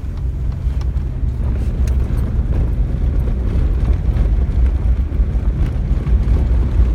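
Truck driving fast on a dirt fire trail, heard from inside the cab: a steady low rumble of engine and tyres on the rough road, with a few light knocks and rattles.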